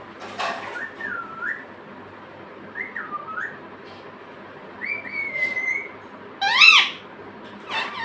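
Pet parrot whistling a few separate notes that dip and rise, then giving two louder calls near the end.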